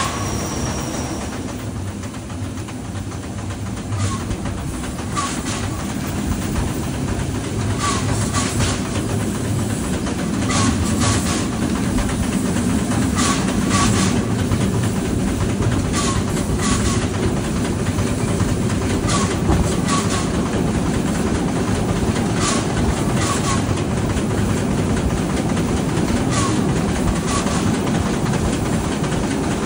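Steam train running along the track: a steady rumble, with the wheels clicking over rail joints in pairs about every two to three seconds.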